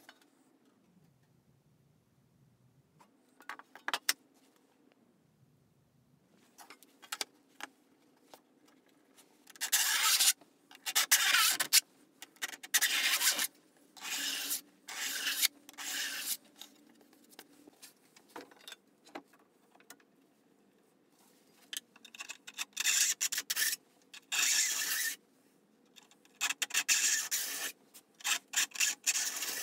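A hand file rasping along the steel teeth of a crosscut handsaw in runs of short strokes, each about half a second to a second long, with pauses between the runs, as the teeth are touched up.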